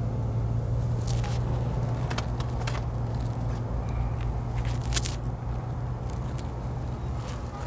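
Steady low hum inside the BAIC BJ40 L's cabin, with a few scattered clicks and scrapes of handling in the interior.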